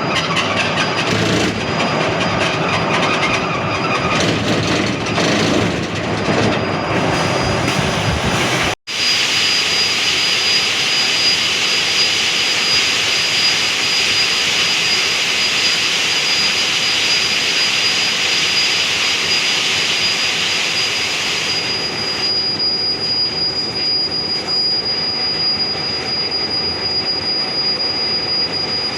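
Concrete mixer truck working: a steady, loud mechanical grinding noise with a thin, high steady whine over it. There is a sudden break about nine seconds in, and after it a hissing layer that drops away about two thirds of the way through.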